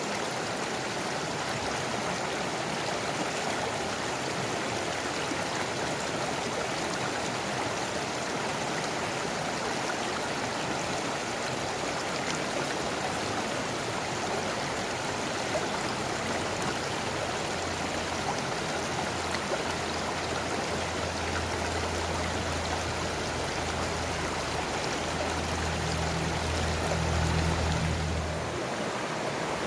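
Mountain stream rushing steadily over rocks. A low hum joins in about two-thirds of the way through and stops shortly before the end.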